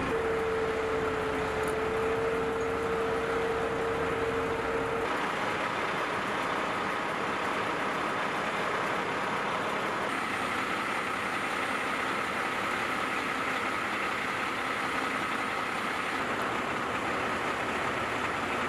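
Steady running-engine noise from military vehicles and equipment, with a steady whine for the first five seconds that cuts off abruptly.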